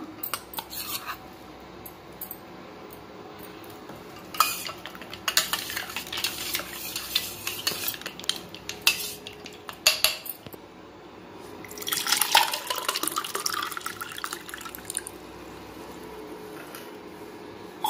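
A metal spoon stirring a watery drink in a stainless steel bowl, clinking and scraping against the sides. The clinking comes in two spells, one from about four seconds in and one from about twelve seconds in, with quieter stretches between.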